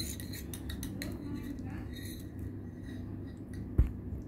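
Homemade glue-and-detergent slime being squeezed and pressed by hand on a hard surface: a few small sticky clicks in the first second, then one soft thud a little before the end as the lump is pressed down.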